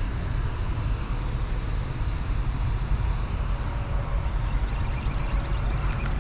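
Steady low wind rumble on the microphone over an even hiss of falling rain.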